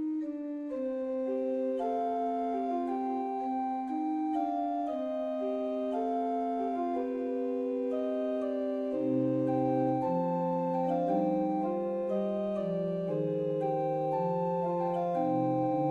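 Slow, calm instrumental music on an organ-like keyboard: sustained chords under a gentle melody, with a deeper bass line joining about nine seconds in.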